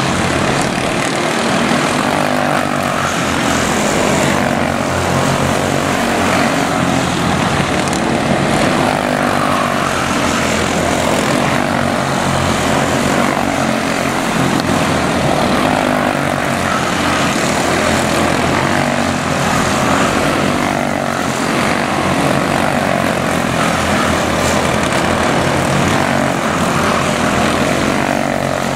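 Several quarter midget race cars with Briggs & Stratton Animal single-cylinder four-stroke engines running at racing speed around a small oval, their engine notes overlapping in a steady buzz.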